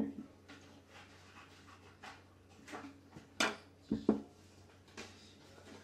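Scattered light knocks and clicks of household items being handled, the sharpest about three and a half and four seconds in.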